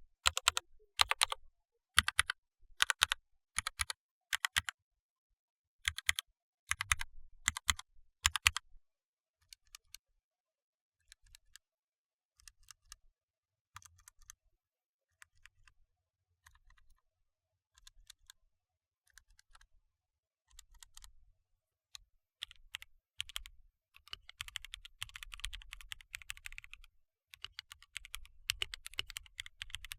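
Mechanical keyboard keys with Gateron Yellow linear switches being pressed and released one at a time: loud clicks about two a second at first, then sparser, quieter presses. About 22 seconds in, fast continuous typing starts, on Gateron Yellow Pro switches.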